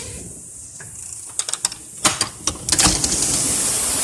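A series of sharp clicks and knocks over the steady hiss of heavy rain; the rain grows louder near the end.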